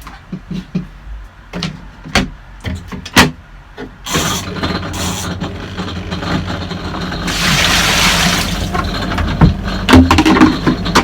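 A few knocks and clicks of handling. About four seconds in, a twin-tub washing machine starts running, a steady motor hum with water churning in the tub.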